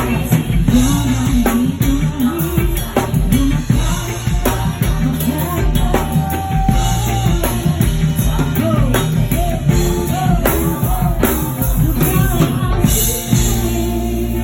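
Live rock music played loud through a sound system: a drum kit keeping a steady beat under bass and a singing voice.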